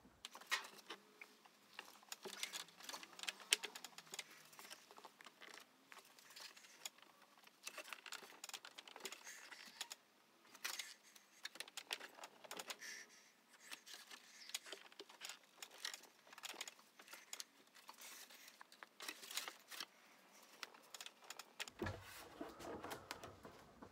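Faint, irregular light clicks, taps and rustles from hands working a thin aluminium elevator skin in a wooden bending block to bend its trailing edge.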